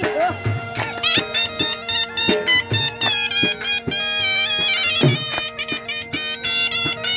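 Folk dance music: a reed wind instrument plays an ornamented melody over a steady drone, with regular drum strokes beneath.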